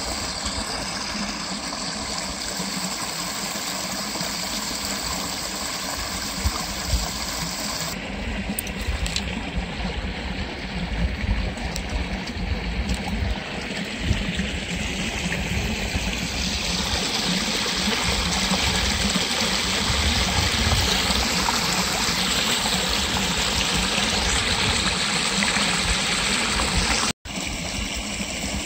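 Flowing water running steadily with an even rushing sound. It changes a little in tone about a third and halfway through, and cuts out for an instant near the end.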